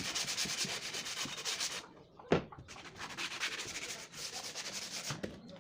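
Sandpaper rubbing on plywood in two spells of rapid, rasping strokes, with a single knock between them a little past two seconds in.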